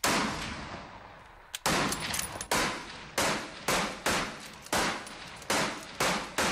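Rifle shots, about nine in quick, irregular succession, each followed by a ringing echo that fades out.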